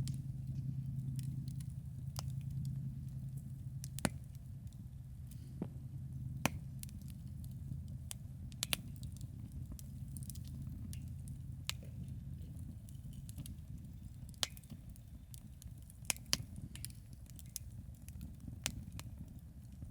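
Wood campfire crackling, with irregular sharp pops a second or two apart over a low steady rumble that eases off about halfway through.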